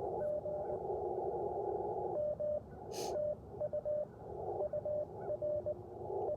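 Morse code (CW) received on an Icom IC-705 transceiver: a single steady tone keyed in short and long marks inside the hiss of the radio's narrow CW filter, with stretches of plain hiss between groups. The sending is halting, which the operator suspects comes from trouble with the sender's key. A single sharp click sounds about three seconds in.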